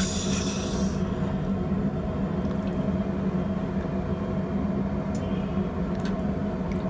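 Red-hot copper quenched in a bucket of water to anneal it: a sizzling hiss that fades out about a second in. Beneath it a steady low hum of the running forge, with a few faint clicks near the end.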